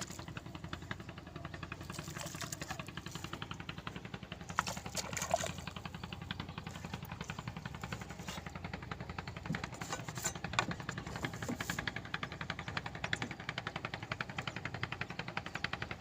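A boat engine running steadily with a rapid, even pulsing beat. A few light knocks come through around the middle.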